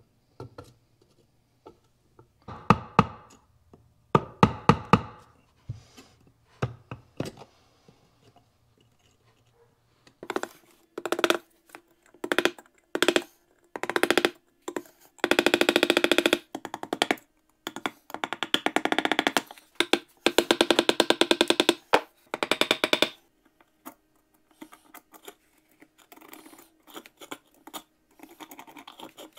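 Metal pick scraping and picking rust out of a rusted cap gun's metal frame, in bursts of rapid scratchy clicks that come thicker and faster in the second half.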